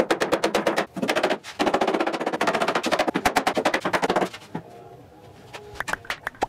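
Rapid mallet blows on a walnut tabletop, about ten knocks a second with short pauses, driving the top down onto its risers. Near the end, a few short squeaky clicks of a one-handed bar clamp being squeezed tight.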